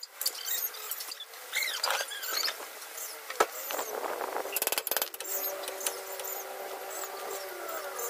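Hand tools working on a car's front suspension: scattered metal clinks and scrapes of a wrench on the steering knuckle and ball joint, with a quick rattle of clicks just before five seconds in. From about five seconds a steady hum sets in, with faint bird chirps throughout.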